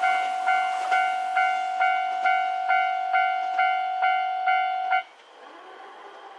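Japanese railway level-crossing warning bell ringing, evenly struck about twice a second, then stopping abruptly about five seconds in as the crossing clears after the train has passed.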